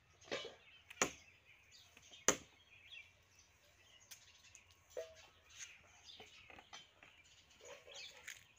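Sharp cracks of neem wood as branches are broken off up in the tree: two loud ones about a second in and just past two seconds, with fainter knocks between.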